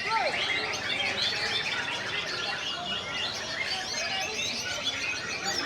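Many caged songbirds singing at once in competition, a dense chorus of overlapping chirps and whistles with no pause.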